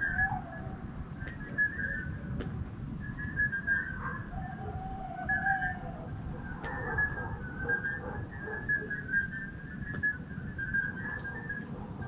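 Night chorus of calling animals: many short, high whistled notes repeating and overlapping from several callers. About four seconds in, one longer, lower note is held for over a second. A steady low background rumble runs underneath.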